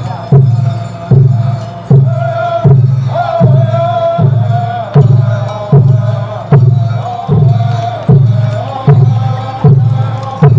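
Native American dance song: a deep drum beaten in a slow, even beat, about one stroke every 0.8 seconds, with a voice chanting over it in long held and sliding notes.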